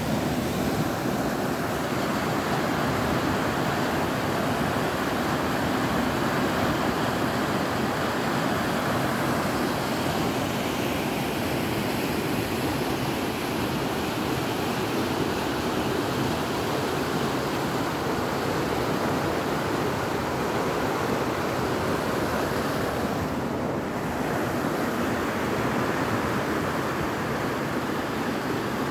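Fast mountain river rushing over rocks in white water: a steady, unbroken rush of water.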